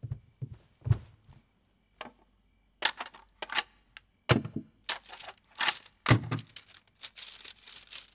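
A few soft footsteps, then the dry clacking and rattling of a bamboo-slip scroll being picked up and unrolled, the clatter getting busier in the second half.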